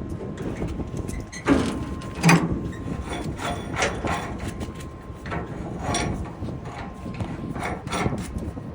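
Hand tools working on metal gas piping, a wrench loosening a gas pipe union, with a run of irregular metallic clicks and scrapes. Two louder knocks come about one and a half and two and a half seconds in.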